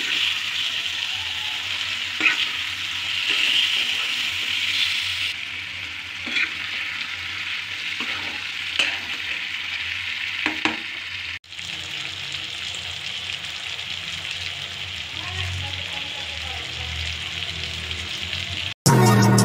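Pieces of pork sizzling as they fry in a metal pan, with now and then the sharp scrape of a metal spatula turning them against the pan. Loud music breaks in abruptly just before the end.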